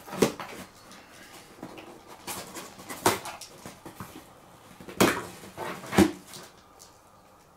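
Packing tape on a cardboard parcel being slit and torn, with a few short, sharp rips and scrapes, then the cardboard flaps pulled open about six seconds in.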